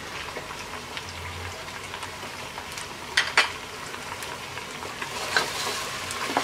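Food frying in hot oil in a cooking pot, a steady sizzle with stirring. There are two sharp clicks about three seconds in, and the sizzle swells a little near the end.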